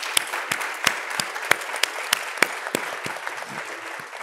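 Audience applause, with one close pair of hands clapping sharply about three times a second above the crowd's clapping; it eases off near the end.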